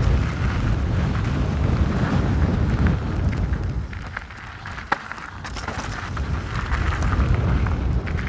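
Wind buffeting an action camera's microphone over the rumble and rattle of a mountain bike, a Canyon Strive, rolling over rough trail. The noise eases for a moment a little past the middle, with one sharp click, then builds again.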